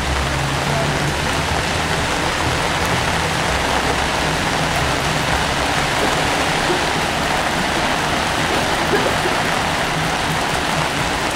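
Steady hiss of rain and of traffic on a wet street, with a low engine hum in the first couple of seconds.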